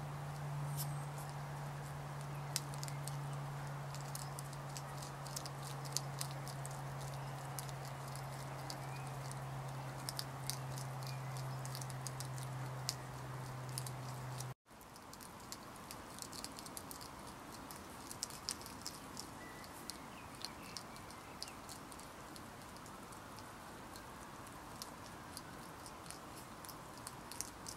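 Young European hedgehogs crunching and chewing dry food pellets: an irregular scatter of sharp little clicks and smacks. A steady low hum runs under the first half and stops at a brief dropout about halfway.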